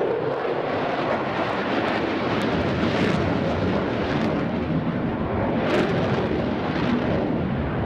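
Eurofighter Typhoon's twin Eurojet EJ200 turbofans in afterburner during a tight minimum-radius turn: a loud, steady rushing jet noise with a few sharp crackles.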